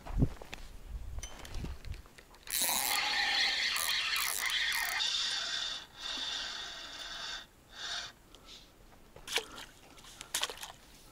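Spinning reel on a feeder rod being cranked, a steady whirring for about five seconds as a hooked bream is reeled in. A few short sharp knocks follow near the end.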